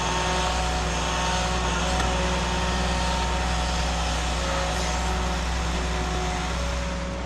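Excavator's diesel engine running steadily under a constant note, with several thin steady whining tones above the engine drone.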